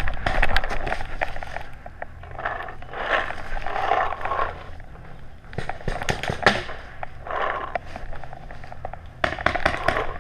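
Footsteps crunching and rustling through grass and dry leaves as a paintball player moves up on foot, with a quick run of sharp clicks near the end.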